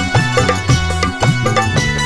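Instrumental music from a Garhwali bhajan: a steady drum beat under long held melodic tones, with no singing.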